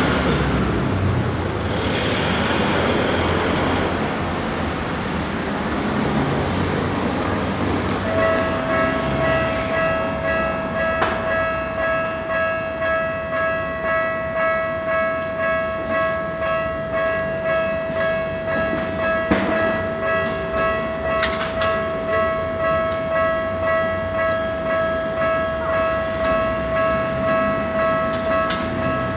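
A train running past over the rails for the first several seconds, then a Japanese level-crossing warning bell starts about eight seconds in and rings a steady, evenly repeated electronic ding, with a few short clanks.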